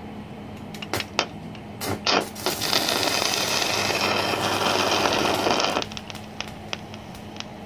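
Stick-welding arc from a Smarter TIG-180S DC inverter welder set to its 180 A maximum. There are a few short scratches as the electrode is struck, then about three seconds of steady arc that stops suddenly. It is a full-power load test of the repaired machine.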